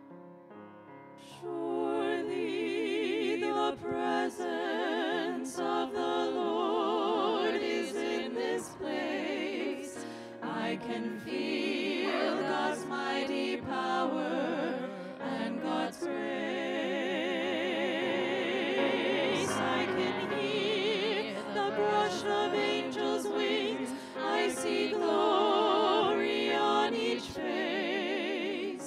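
Small church choir singing with vibrato, coming in about a second and a half in.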